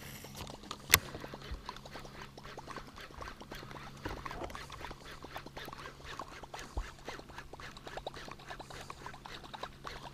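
Baitcasting reel cranked through a topwater retrieve: a rapid, irregular ticking, with one sharp click about a second in. A low steady hum runs underneath.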